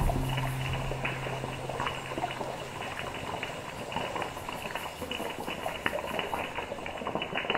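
Chicken pieces deep-frying in hot oil, sizzling steadily with a dense patter of small crackles.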